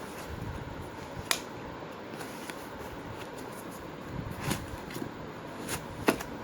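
Handling noise of a metal blank pistol and its holster: several sharp clicks and knocks, the loudest about a second in and another near the end, over a steady fan-like hiss.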